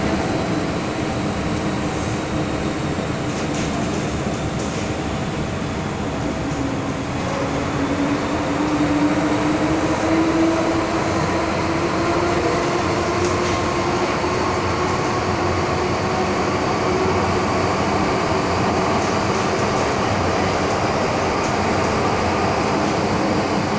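MTR M-Train electric multiple unit running, heard from inside the carriage: a steady rumble of wheels and running gear, with a motor whine that slowly rises in pitch from about seven seconds in as the train gathers speed.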